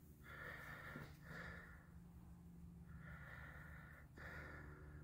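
Near silence, with a few soft breaths close to the microphone.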